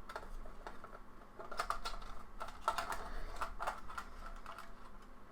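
Screwdriver and small metal parts clicking and tapping against the PS5 Blu-ray drive assembly while its screws are being taken out: a run of irregular light clicks, busiest in the middle.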